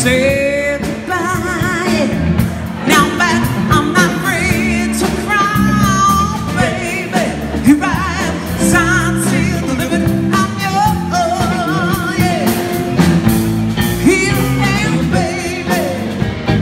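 Live band: a woman singing with vibrato over electric guitar, bass guitar and a drum kit keeping a steady beat.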